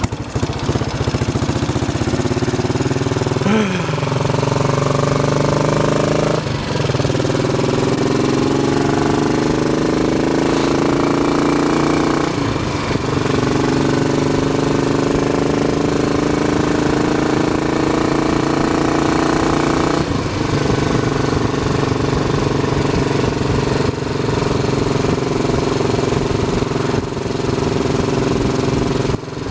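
Royal Enfield Bullet 500's single-cylinder four-stroke engine accelerating away under the rider: its pitch climbs in each gear with four upshifts, the last about two-thirds of the way through, then holds a steady cruise.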